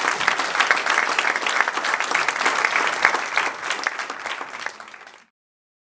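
Audience applauding: many hands clapping at once, thinning out in the last second or so, then cutting off suddenly near the end.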